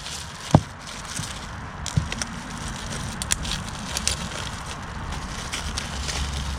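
Hand-handling of motorcycle floorboard parts and hardware: scattered small clicks and knocks over a steady low rumble, with one sharper knock about half a second in.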